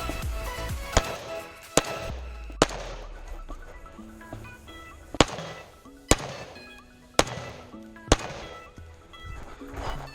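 Seven single rifle shots, the first three and last four under a second apart with a longer pause between them, over background music.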